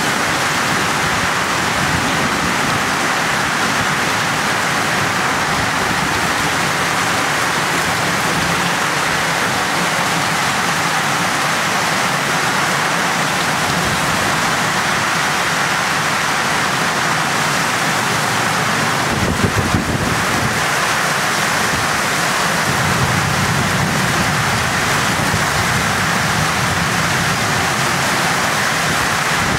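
Heavy rain pouring down steadily onto a flooded yard and a wet porch, a dense, even hiss. About two-thirds of the way through comes a brief low rumble, with a softer low swell just after it.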